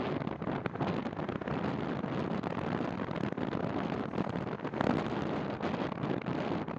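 Wind rushing and buffeting across the microphone of a camera on a moving bicycle. It is steady, with small ticks and knocks and a brief gust about five seconds in.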